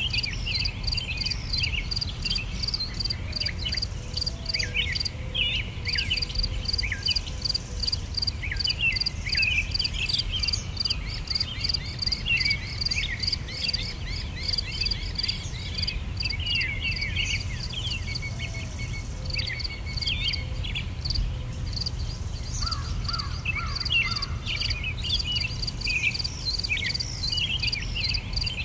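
Crickets chirping in a rapid, even pulse, with small birds chirping in short bursts, over a steady low rumble.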